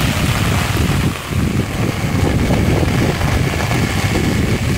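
Heavy rain hissing, with gusts of wind buffeting the microphone in an uneven low rumble.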